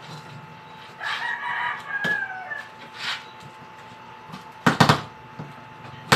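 A rooster crows once, starting about a second in, with a long call of about a second and a half. Sharp clicks from a cardboard box being handled come through, and two quick loud cracks a little over a second before the end are the loudest sounds.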